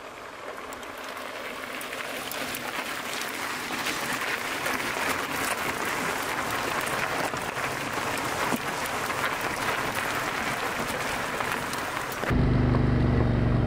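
Mountain bike tyres crunching over loose gravel as a group of riders climbs past, a dense rustling with many small clicks that slowly grows louder. Near the end it cuts abruptly to a steady low hum.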